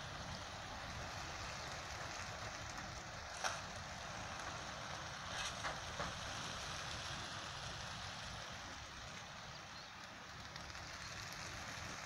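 Wingbeats of a huge flock of racing pigeons just released from transport trucks, a steady rain-like rushing rustle. There is a sharp clack about three and a half seconds in and a few more around six seconds.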